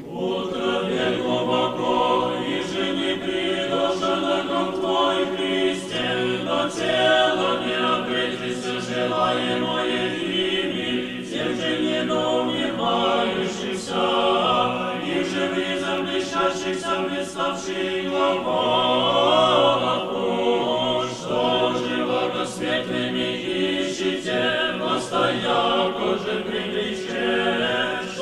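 Orthodox church choir singing a chant in several voices without instruments, the sustained chords running on continuously.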